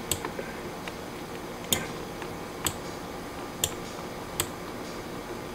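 Five sharp, single clicks at irregular intervals about a second apart, typical of a computer mouse being clicked while working in CAD software, over faint room hiss.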